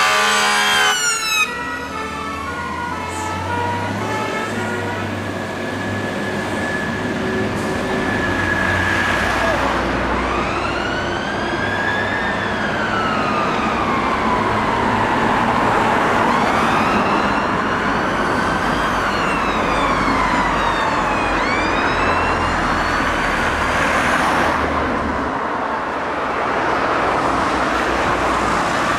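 Fire engines' electronic sirens sounding as they drive off: a fast warble for the first second or so, then slow wails rising and falling, over truck engine and road traffic noise.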